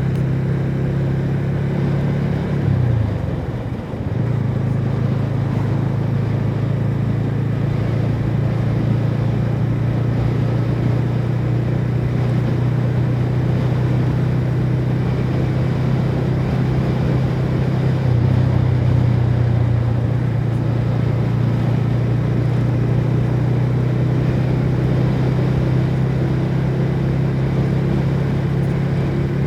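TVS Ronin's 225 cc single-cylinder engine running through its stock exhaust while riding at a steady engine speed. About three seconds in the revs drop briefly, then recover and hold steady.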